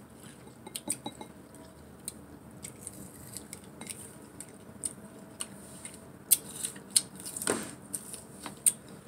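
Close-up eating sounds: scattered sharp clicks and snaps as sour tamarind pods are broken apart, dipped in a sauce bowl and bitten, coming more often and louder in the second half, with one longer, fuller sound about seven and a half seconds in.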